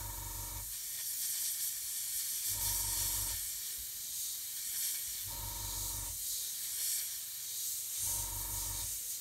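Airbrush spraying paint with a steady hiss as an edge of the camouflage is sharpened. A low hum pulses in briefly four times, about every two and a half to three seconds.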